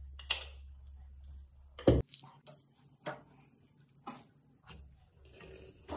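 Kitchen handling noise at a gas stove: a low hum stops with one sharp knock about two seconds in, followed by scattered small clicks and taps of utensils and containers.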